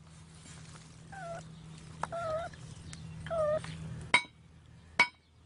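A cat trapped up to its head in set concrete inside a pipe meowing three times in short calls. Sharp metallic clinks ring out between the calls, the loudest just after four seconds and another at five seconds.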